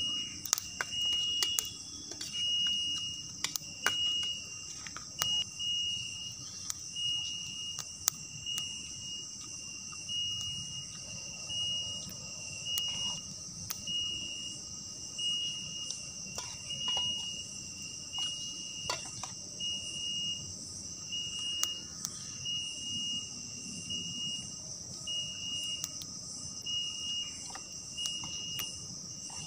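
Night insect chorus: a steady high-pitched drone with a short, evenly repeating chirp about once a second, and a few faint clicks scattered through it.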